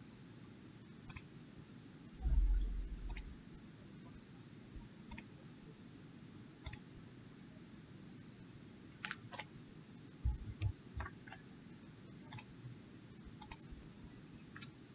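Computer mouse clicking: sharp single clicks every second or two, coming closer together in the second half, with a low thump about two seconds in.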